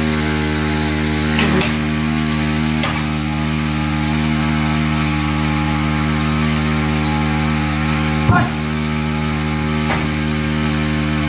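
Small engine running steadily at constant speed, with a few brief knocks over it.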